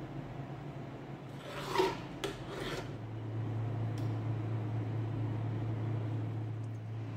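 A knife scraping along the rim of an electric pizza pan as dough is trimmed: a rasping rub lasting about a second and a half, with a small click. About three seconds in, a low steady hum sets in as the pan is switched on at its thermostat knob, with a faint click a second later.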